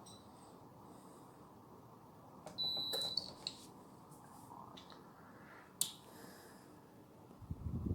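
A short electronic beep from the Dreo wall heater's touch controls about three seconds in, with a few clicks around it. A single sharp click follows a few seconds later, over a faint steady hum. A louder low rumbling noise starts near the end.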